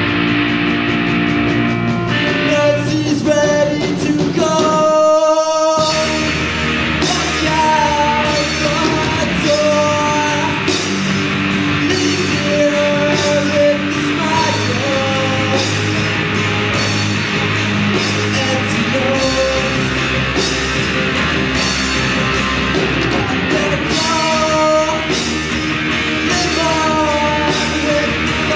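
Live rock band playing: electric guitar, bass and drums under a lead melody line. The low end drops out briefly about five seconds in, then the full band comes back in.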